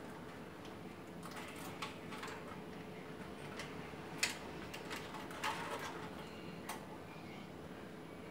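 Scattered small clicks and ticks of wires being handled and fitted into the terminal block of an electric water heater, the loudest click about four seconds in, over a faint steady hum.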